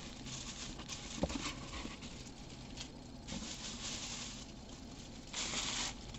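Packaging rustling as hands rummage through the bottom of a box, in a few separate patches, with a light knock about a second in.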